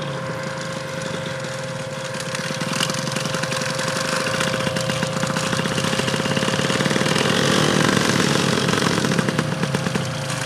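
Paramotor engine and propeller running steadily; the sound swells a little through the middle and eases slightly near the end.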